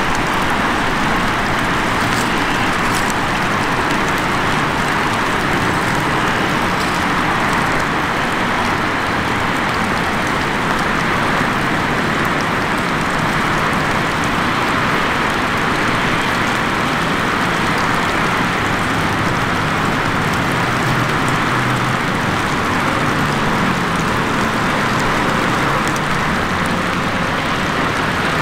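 Steady, even rushing of water, with no rise or fall.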